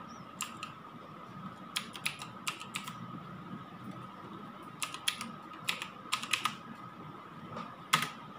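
Computer keyboard keystrokes and mouse clicks: scattered sharp clicks, single and in short runs, with the loudest click near the end. A faint steady high-pitched hum lies underneath.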